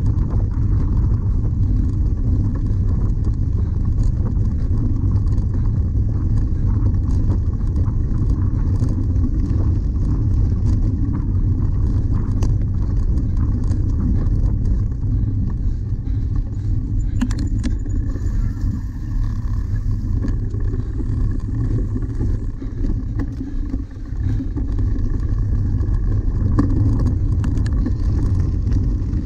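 Steady low rumble of wind buffeting a cyclist's action-camera microphone and of the bicycle rolling over rough grass, with small clicks and rattles from bumps in the ground.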